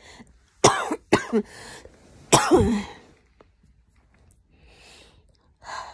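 A woman's short, sharp throaty outbursts, three of them in the first three seconds, each dropping in pitch, the last the loudest; a faint breath near five seconds.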